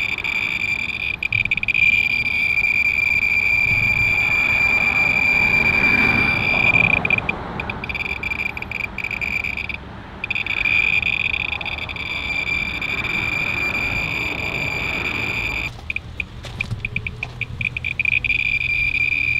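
Thermo RadEye B20 survey meter clicking so fast that the counts merge into a steady high buzzing chirp, the sign of a high count rate from the uranium-oxide glaze on the ceramic tiles it is held against. Briefly, near the end, the buzz breaks up into separate rapid clicks as the meter is moved between tiles, then runs on again.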